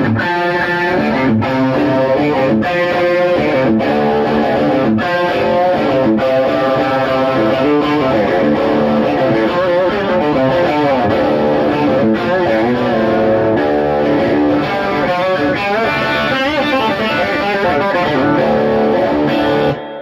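Electric guitar played through an amplifier rig, a steady run of notes and chords with a regular accent about every second and a quarter. The playing drops out briefly near the end.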